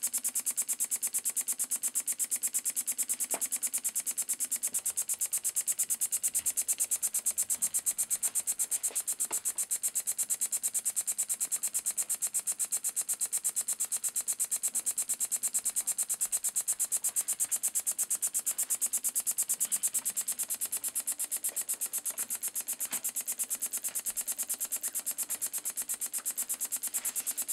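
Elmer Verburg No. 24 model beam engine running steadily on compressed air: a rapid, even puffing hiss of exhaust air with each stroke, with a few light clicks.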